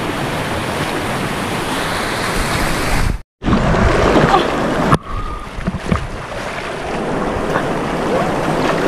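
Steady rushing of flowing stream water. It drops out briefly a little past three seconds in and changes abruptly at about five seconds.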